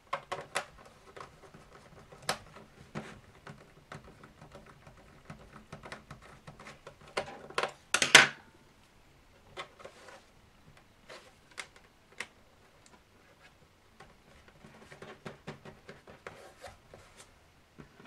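Irregular small clicks, taps and scrapes of a rubber foot strip being pressed by hand into the channel of an HP 15 laptop's plastic bottom case, with a louder knock about eight seconds in.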